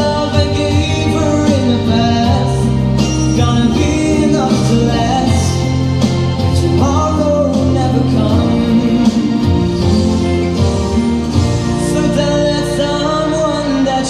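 Live band playing a slow pop ballad, a melody line over sustained bass notes and keyboard chords, during a break between sung verses.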